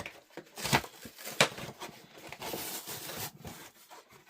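Rustling and crinkling of a book mailer being handled and opened, with several sharp crackles.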